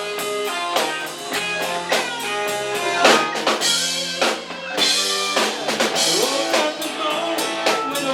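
A live band playing an instrumental passage of a song: a drum kit keeping a steady beat under guitar, with a loud hit about three seconds in followed by a stretch of ringing cymbals.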